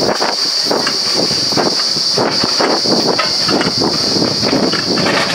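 Truck-mounted water-well drilling rig running at the borehole: a steady high hiss with irregular mechanical clatter underneath.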